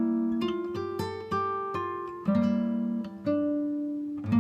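Background music of acoustic guitar chords, each plucked sharply and left to ring out, with a new chord every half-second to a second.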